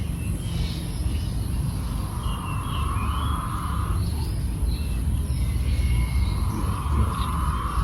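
King quail cooing: a soft, steady call lasting over a second, given twice, with brief higher chirps in between, over a steady low rumble.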